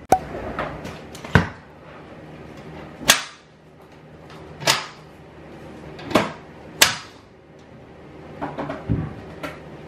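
Sharp wooden-sounding clacks and knocks, about six of them spread over several seconds, as louvred window shutters are unlatched and pushed open.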